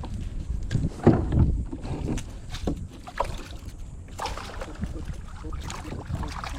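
Wind buffeting the microphone aboard a fishing kayak: a steady low rumble with scattered knocks and handling bumps, the loudest knock about a second in.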